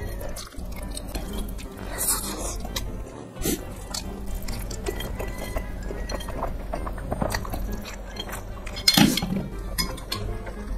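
Chopsticks clicking and clinking against a plate while a man eats a big mouthful of spicy noodles close to a clip-on microphone, with one louder burst of noise about nine seconds in.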